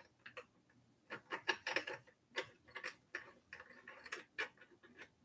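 Faint, irregular light clicks and ticks, a few a second with a denser cluster about a second and a half in, from the quick-release on a folding e-bike's handlebar stem being unscrewed by hand.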